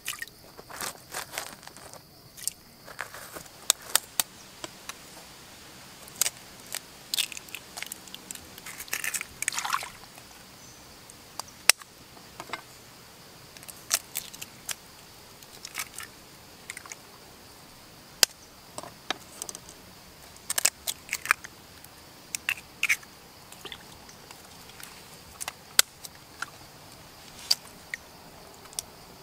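Goose eggs being cracked open and tipped into a hollowed-out gourd: scattered sharp taps and cracks of the shells, with a few short scrapes.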